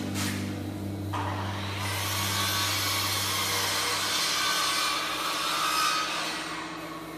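A power tool cutting wood: a steady hissing grind with a faint whine that starts about a second in and dies away near the end.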